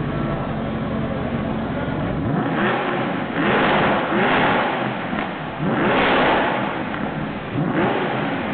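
Mercedes-Benz SLS AMG's 6.2-litre V8 idling, then revved several times in quick throttle blips, each rise and fall in pitch clearly heard.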